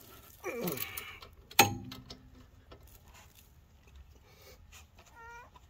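A torque wrench clicks sharply on a brake caliper bolt as it reaches its set torque, about one and a half seconds in, the loudest sound, with a short metallic ring after it. Quieter tool handling follows, with a brief squeak near the end.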